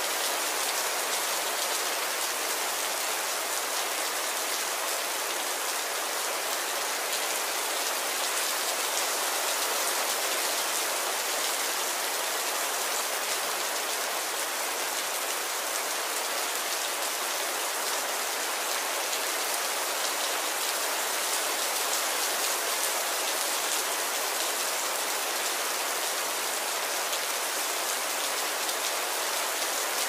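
A steady, even hiss like rain falling on a surface, with no distinct drops or tones standing out.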